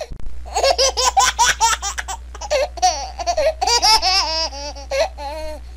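A person laughing hard and high-pitched: a quick run of short laughs, then longer wavering squeals of laughter.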